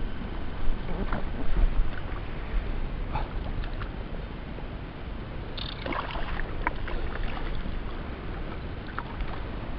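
Water lapping and splashing against the tubes of a small inflatable fishing pontoon, with wind rumbling on the microphone. Scattered light splashes and knocks come through, a cluster of them about six seconds in.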